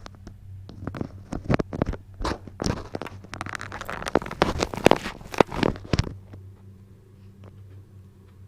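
Lapel microphone being handled and pushed into a motorcycle helmet: irregular scraping, rustling and knocks of the mic against the helmet lining for about six seconds, then only a faint low steady hum.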